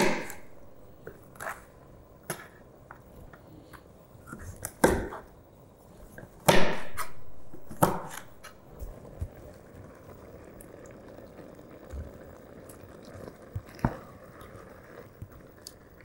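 Kitchen knife chopping weever fish on a plastic cutting board: scattered sharp knocks of the blade on the board, the loudest about five and six and a half seconds in. In the second half a wooden spoon stirs fish in a copper pot over a faint steady hiss of cooking.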